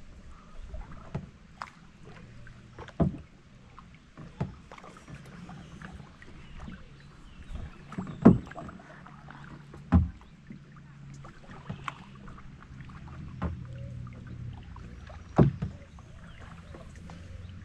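Kayak being paddled along a river: paddle strokes in the water with irregular sharp knocks against the plastic kayak, the loudest about eight, ten and fifteen seconds in.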